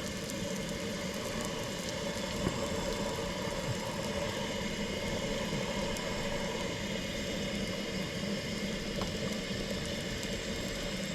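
A steady, engine-like hum, like a motor idling, with a few faint ticks.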